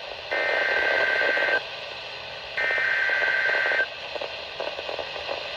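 Emergency Alert System SAME header data: two buzzing two-tone bursts, each a little over a second long and about a second apart, with steady radio hiss between them. They are the coded header that opens a new alert, here a severe thunderstorm warning.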